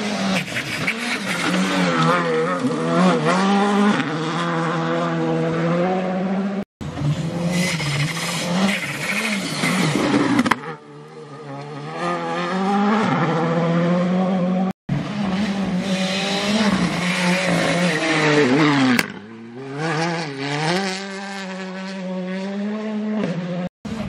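Rally cars at full effort on a gravel stage, heard in three clips joined by abrupt cuts. Each engine's pitch climbs hard and drops back again and again through gear changes and lifts, with some tyre noise on the loose surface.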